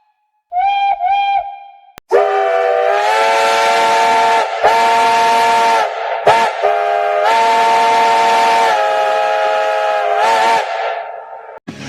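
Polish steam locomotive whistles: first two short toots on a single note, then a different whistle sounding several notes at once in a run of long blasts broken by short toots, with steam hissing through it, cutting off just before the end.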